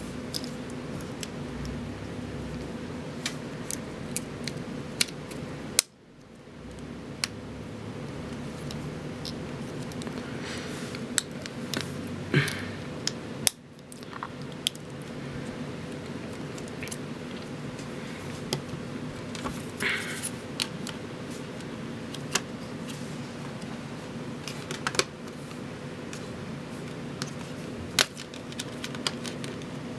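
Scattered small clicks and taps from handling a Samsung Galaxy S2's plastic parts as the phone is put back together, over a steady low hum.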